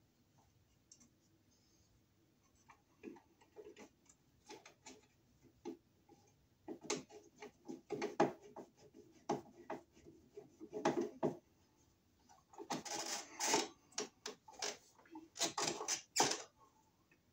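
A light switch being screwed into a plastic electrical box with a hand screwdriver: irregular clicks and scrapes of the screwdriver, screws and switch strap, starting about three seconds in and coming in thicker clusters toward the end.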